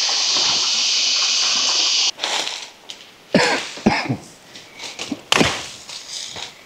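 A forest stream's steady rushing, cutting off suddenly about two seconds in. Then dry leaves and twigs crackle, with a few sharp snaps and cracks, as a person pushes through undergrowth and grabs at branches.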